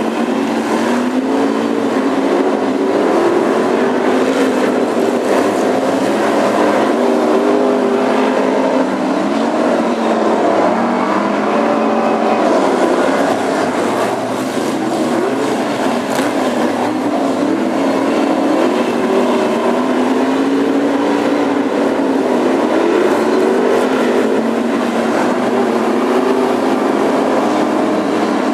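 A pack of BriSCA F1 stock cars' V8 engines racing, several engines running at once and rising and falling in pitch as the cars lift off and accelerate through the bends.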